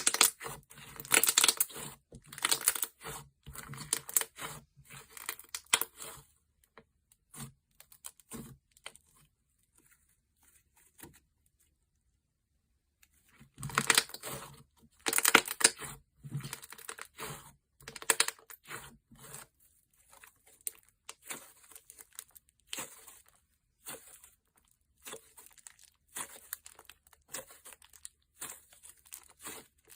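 Hands playing with a thick slime, which crackles, clicks and pops in dense bursts, with a quiet pause of a few seconds about ten seconds in.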